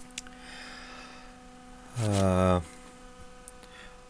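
A steady electrical mains hum, with a brief, low, voiced 'mm' from a man about two seconds in.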